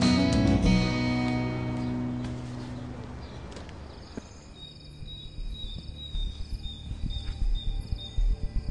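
Acoustic guitar music fades away over the first few seconds. Crickets then chirp steadily in pulses, with irregular low thuds underneath.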